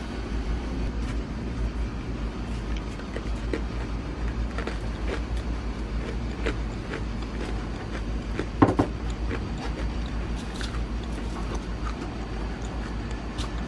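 Scattered light clicks and knocks from handling a stainless refrigerator door panel, with one louder clunk about two-thirds of the way through, over a steady low hum.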